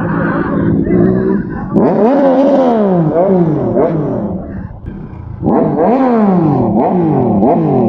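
Motorcycle engine running steadily, then revved in quick throttle blips, each one rising sharply in pitch and sliding back down, in two bouts: one about two seconds in and another from about five and a half seconds in.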